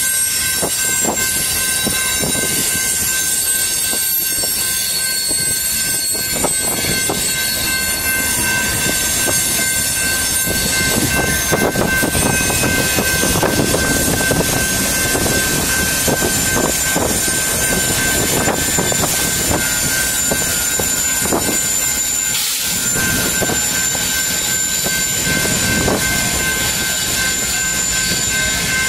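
Loaded coal train cars rolling past: a steady rumble of steel wheels on rail, broken by repeated clicks and clacks as the wheels cross rail joints.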